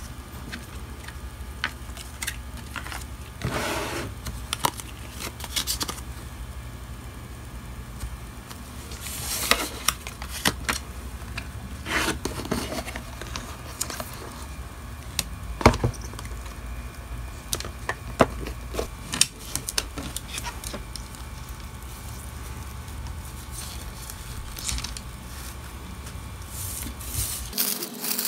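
Hands handling small plastic packing items: scattered clicks and taps of a clear plastic carry case and containers, with brief rustles of plastic packaging, over a steady low hum. Near the end the hum cuts off and the crinkling of a plastic pouch and envelope begins.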